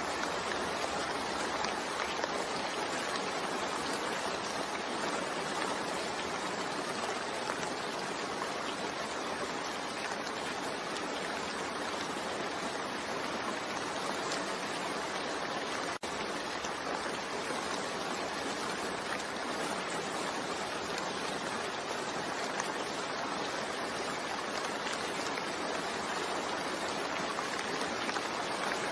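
Steady rain, an even hiss of falling rain with no pauses, cut by a momentary dropout about halfway through.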